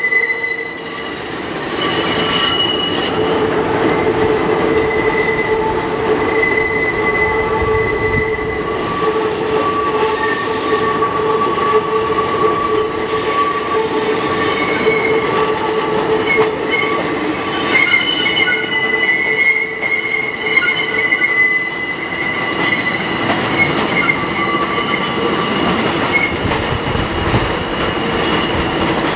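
New York City subway trains of R68A and R160 cars rolling slowly past on the curving yard tracks. Their steel wheels squeal in several steady tones over the continuous rumble of the cars.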